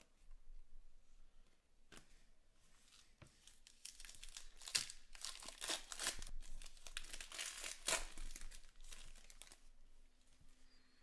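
A few light clicks of cards being handled, then a trading-card pack's wrapper torn open and crinkled by hand, with dense rustling over several seconds.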